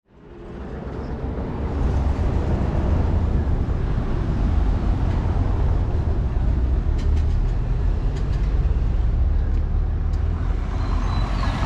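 City street traffic: a steady low rumble of vehicles, fading in over the first two seconds.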